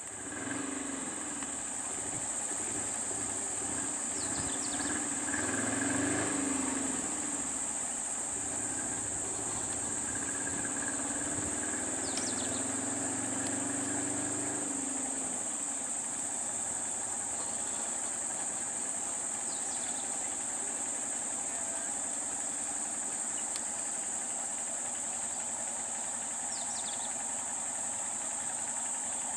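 Steady high-pitched insect drone over idling vehicle engines, with an engine swelling louder around six seconds and again from about ten to fifteen seconds in. A few short chirps come through now and then.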